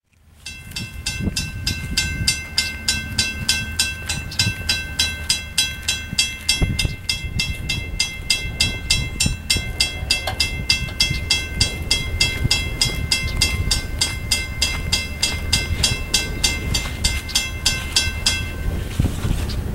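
Railroad crossing signal bell ringing in fast, even strikes, about four a second, over a low rumble, while the crossing gates lower; the bell stops shortly before the end.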